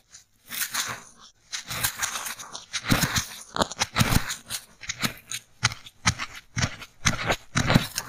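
Wooden ear-cleaning sticks with fluffy goose-feather and cotton tips poking and scraping inside a hole in a styrofoam block, close up, making irregular crunching and crackling strokes. The strokes are sparse for the first second or so, then come thick and fast.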